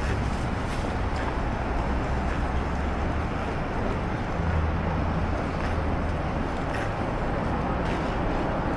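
Busy city street ambience: steady traffic noise with a low rumble that swells for a second or two about four and a half seconds in.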